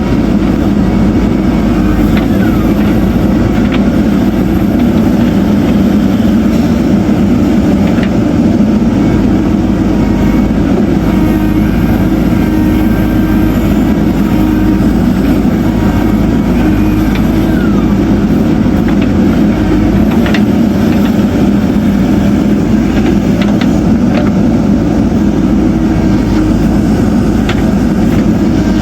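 Diesel engine of a JCB backhoe loader running steadily under working load, with a few faint clicks and knocks.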